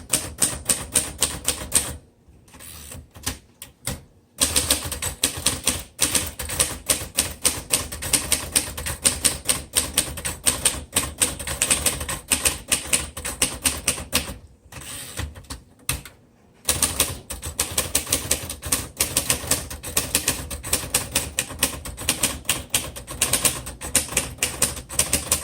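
1946 Royal Arrow portable manual typewriter being typed on steadily: rapid keystrokes and type bars striking the platen, with two short pauses, one about two seconds in and one about fifteen seconds in.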